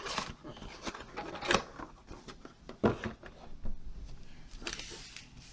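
Trading-card box and packs being handled by hand: scattered taps and clicks, with rustling of the packaging, strongest about a second and a half and three seconds in.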